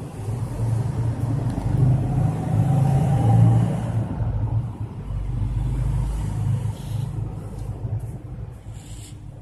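Domestic cat purring close to the microphone, a low steady rumble that fades near the end.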